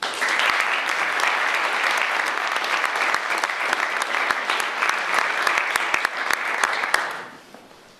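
Audience applauding: many hands clapping steadily, dying away about seven seconds in.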